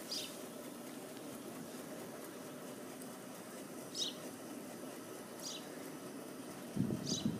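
317 cc stainless-steel stationary Stirling hot-air engine running at a steady speed with an even low hum. A few short, high, falling chirps are scattered over it, and a louder rumbling comes in near the end.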